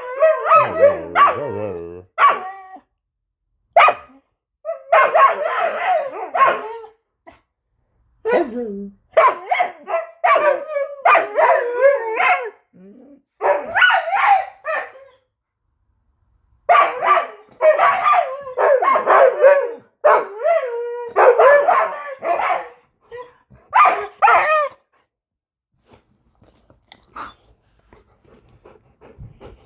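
Dog barking in repeated bouts of several quick barks, each bout a second or two long with short pauses between, stopping about 25 seconds in.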